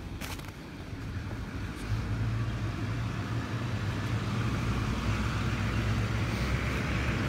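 An engine's low, steady drone that grows gradually louder, with a hiss building toward the end.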